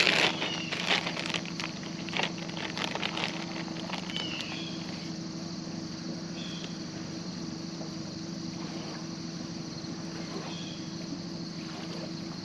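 Plastic zip-top bag crinkling and rustling in the first few seconds as bait is pulled out to rebait a hook, over a steady low hum; a few faint short chirps come later.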